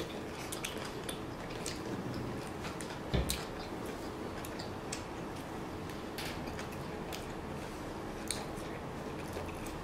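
Close-up chewing of steak, with wet mouth clicks and smacks over a low steady room hum. One louder thump about three seconds in.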